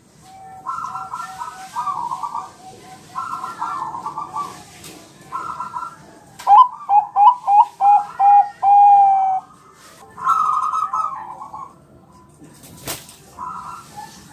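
Zebra dove (Bangkok-type perkutut) cooing in a series of phrases of quick stuttering notes. The loudest phrase, around the middle, is a run of short coos ending in one long held note. A single sharp click comes near the end.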